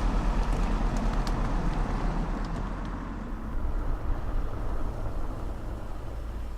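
Steady low rumble of a vehicle running, with engine and road noise, easing slightly after about three seconds.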